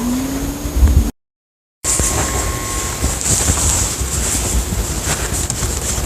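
Loud, steady rushing noise with a low rumble, like wind buffeting the microphone. A short rising tone sounds at the start, and the sound cuts out completely for under a second about a second in, then comes back.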